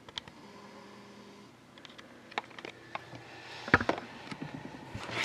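Handling noise: scattered light clicks and knocks as a boxed hockey card box is moved about, with a louder cluster of knocks about three and three-quarter seconds in.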